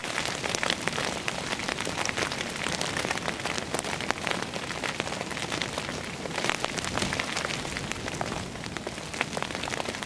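Steady rain falling, an even hiss broken by frequent sharp ticks of individual drops landing close by.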